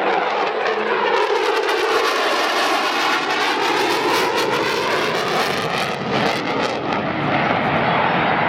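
F-14 Tomcat's twin jet engines passing at high speed with the wings swept back, a dense jet noise with a swirling, phasing sweep as the aircraft goes by. The hissing upper end swells about a second in and drops away after about six seconds.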